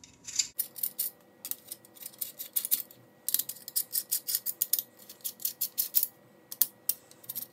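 Rapid, light metallic clicking of a small Allen key turning out the handguard screws of a Sage EBR rifle chassis, in quick runs with short pauses.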